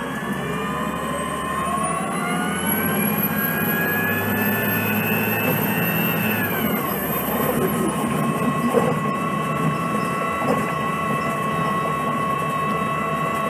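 Drivetrain of a 2006 Orion VII CNG city bus with a Cummins C Gas Plus natural-gas engine and Voith D864.3 automatic transmission, accelerating: a whine rises steadily in pitch for about six seconds, then drops away and settles into a steady whine over the running engine.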